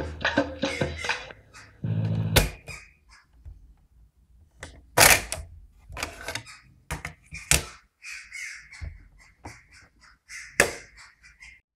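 Cassette playback from a National Panasonic portable radio cassette recorder stops about two seconds in with a brief low hum and a click. It is followed by a run of sharp plastic clicks and clunks from the machine's keys and cassette door as the door is opened, the cassette handled and the door shut again. The loudest snaps come about five, seven and a half and ten and a half seconds in.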